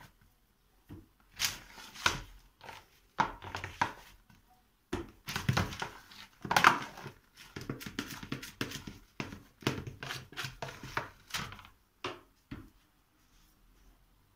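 A metal spoon scraping and knocking inside a plastic tub as soft dough is scooped out and pulled into pieces, with irregular clicks and crinkling from the plastic container.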